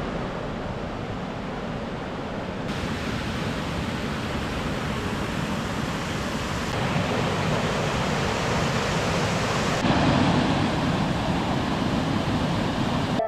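River water rushing through the sluice beneath a wooden watermill, a steady hiss that steps up slightly in level a few times.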